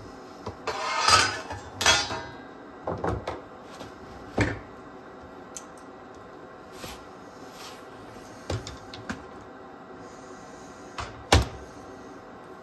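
Handling noise from working on a cassette deck: separate clicks, knocks and light rattles of small parts being moved and set down, with a longer rattling scrape about a second in and a sharp knock near the end.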